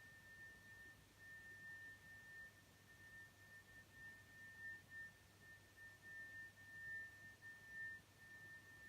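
A steady high-pitched whistle outdoors: one unchanging tone that swells and fades in loudness, of unknown origin.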